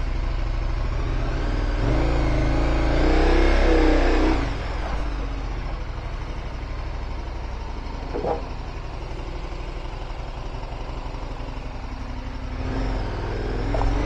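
Motorcycle engine running at low speed, with the revs rising from about two seconds in and dropping back about four and a half seconds in, then a smaller rise near the end.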